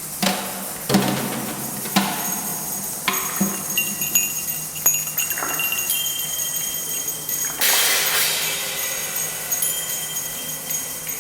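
Live percussion: a series of sharp struck hits, with chimes and bells ringing on in high, steady tones. A brief rushing swish comes about eight seconds in.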